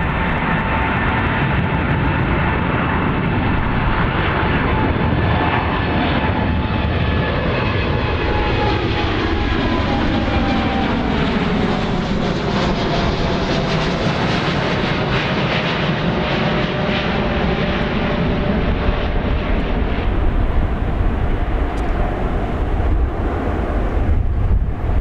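Jet airliner on its takeoff run, most likely a Boeing 787-8 Dreamliner: a loud, steady engine roar with whining tones that fall in pitch about halfway through as the aircraft passes the microphone.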